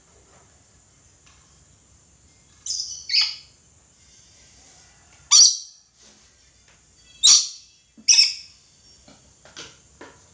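Red lory (Eos bornea) calling: five short, shrill screeches, a pair about three seconds in and then three more spaced a second or two apart, with a few fainter notes near the end.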